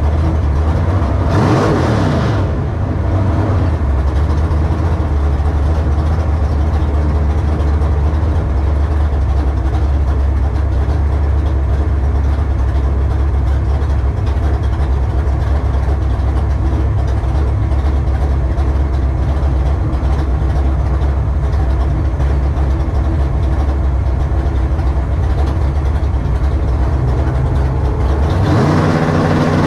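Carbureted drag-racing truck engine idling steadily with a low rumble, revved briefly about two seconds in. Near the end it revs up, its pitch climbing.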